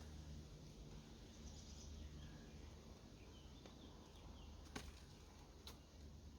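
Near silence: faint low rumble of ambient noise with a few faint bird chirps, and two sharp clicks about a second apart past the middle.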